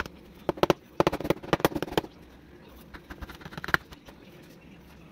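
A metal utensil scraping and clicking against a metal baking pan while cutting cornbread. There is a quick run of sharp clicks from about half a second to two seconds in, and a shorter run a little after three seconds.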